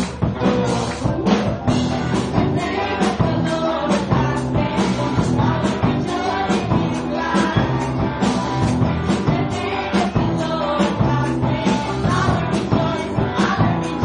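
A live band of electric guitar, bass guitar, drum kit and keyboard plays an upbeat church song with a steady beat, with singers on microphones over it.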